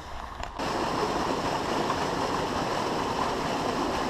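Steady rush of stream water pouring over a small weir, coming in suddenly about half a second in.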